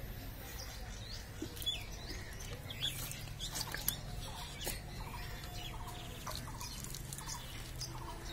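Small birds chirping, with a run of short repeated calls in the middle, over a steady low hum. A few sharp clicks and snaps come through, the loudest near the middle.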